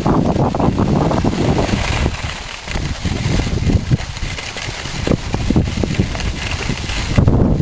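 Wind buffeting the microphone as the skier holding the camera moves downhill, with skis scraping and hissing on packed snow. The rumble is loud and uneven, with frequent short scrapes.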